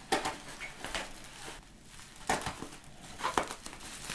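Plastic bubble wrap crinkling and tearing in several short bursts as it is slit with a folding knife and pulled apart by hand.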